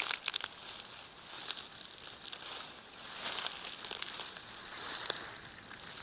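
Footsteps pushing through dense scrub and undergrowth: leaves, twigs and brush rustling and crackling underfoot and against the legs in an irregular rhythm, with one sharper crack about five seconds in.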